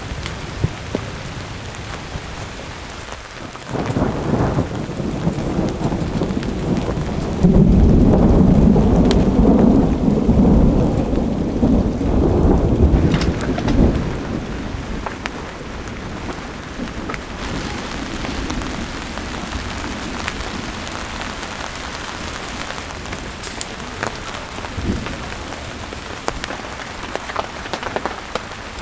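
Steady cold winter rain falling, with a long roll of thunder that builds about four seconds in, rumbles loudest for several seconds in the middle, then dies away, leaving the rain.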